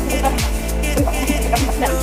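Background music with a steady beat, a bass drum hitting about every 0.6 seconds.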